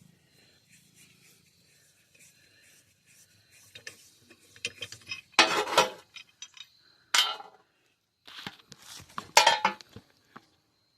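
Metal clinking and rattling in a few short bursts after about four seconds of near quiet, the loudest about five and a half and nine and a half seconds in, as metal tools or parts are handled.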